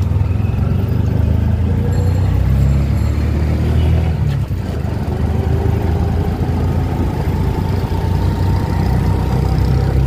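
Small engine of a CNG auto-rickshaw running steadily as it drives along, a low drone heard from the passenger seat, with passing street traffic around it.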